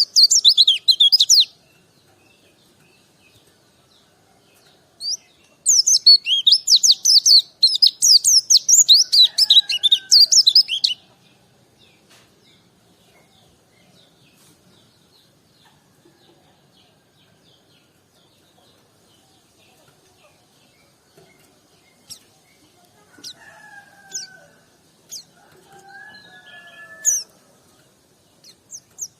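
White-eye (pleci) singing: fast, high twittering phrases, briefly at the start and again in a long run of about five seconds. After a long quiet gap come scattered single high notes and a few lower whistled slurs near the end.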